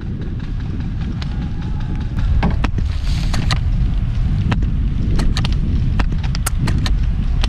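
Strong wind buffeting the microphone: a constant low rumble. From about two seconds in it is dotted with scattered sharp clicks and snaps.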